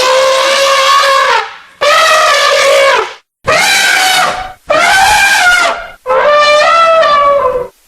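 Elephant trumpeting sound effect: loud, brassy trumpet calls in a series. The first ends about a second and a half in, then four more follow, each a second or so long and dropping in pitch as it ends.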